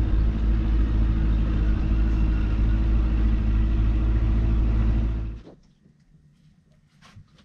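Small motorboat's engine running steadily underway, a low drone that cuts off abruptly about five seconds in. Afterwards only faint clicks and small handling sounds.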